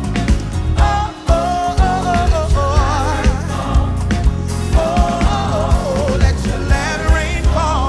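Gospel song played by a band: a steady bass and drum beat under a singer holding long, wavering vocal notes.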